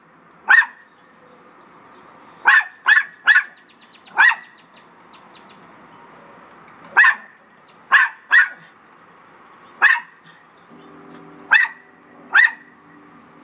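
Small dogs giving short, sharp, high-pitched barks, about eleven in loose clusters, in territorial alarm at another dog passing through their yard. A faint low steady drone comes in near the end.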